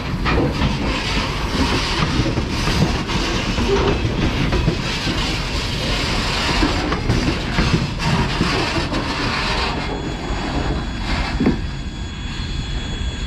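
Freight train of open-top gondola cars rolling slowly past at close range: steel wheels rumbling and clicking over the rail joints. Near the end the last car rolls away, the noise eases, and a thin high squeal from the wheels and rails remains.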